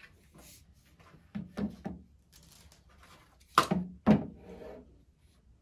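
Handling sounds of a Bosch GET75-6N random-orbit sander and its red sanding discs at the workbench. A few soft rustles and knocks come first, then two sharp knocks about half a second apart, past the middle, as the sander is set down on the epoxy board.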